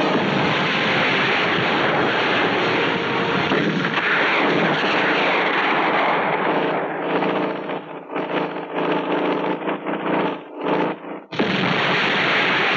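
Film battle sound effects: dense gunfire and explosions. A few seconds past the middle it breaks into separate bursts with short gaps, then the full din comes back near the end.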